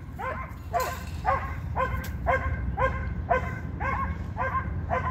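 A German shorthaired pointer barking over and over at a squirrel up a tree, about two short barks a second in an even rhythm.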